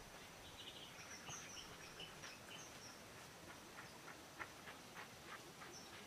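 Faint forest ambience: short high bird chirps in the first few seconds, then a run of short sharp clicks or calls, over a thin steady high tone and hiss.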